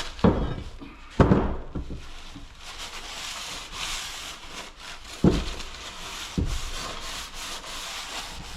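Scrap metal parts being worked by hand: a scraping, rubbing noise broken by four sharp knocks.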